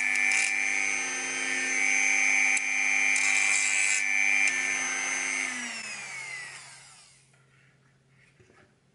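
Handheld rotary tool with a small sanding drum running at a steady high whine, sanding the edge of a small wooden piece, with a scratchy sanding noise that comes and goes. About five and a half seconds in the whine falls in pitch and fades away as the tool spins down.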